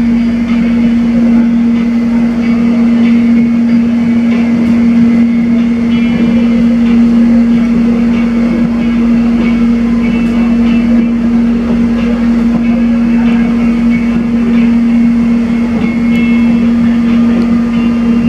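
Cabin noise inside a moving electric multiple-unit train: a loud, steady hum over the even running noise of the train on the track.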